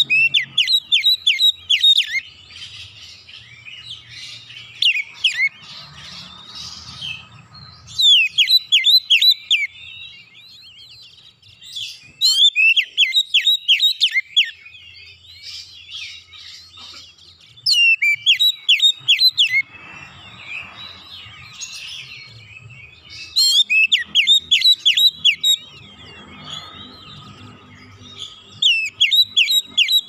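Caged oriental magpie-robin (kacer) singing in the rapid 'nembak' style: about six loud bursts of quick, sharp, downward-sliding notes, each lasting one to two seconds, with quieter warbled phrases between them.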